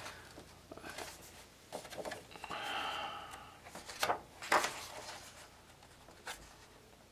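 Paper pages of a coloring book being turned by hand: soft rustling, then sharp flicks of the page about four seconds in and once more near the end. A short breath-like sound comes just before the flicks.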